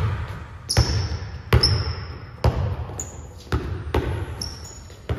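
A basketball being dribbled on a gym's hardwood court: slow, echoing bounces about once a second. Short, high sneaker squeaks on the floor come between them.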